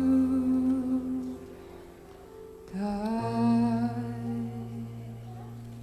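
Closing line of a worship song: a sung note held and fading, then a final long note on "God" from about three seconds in, over a steady low accompanying chord that slowly dies away.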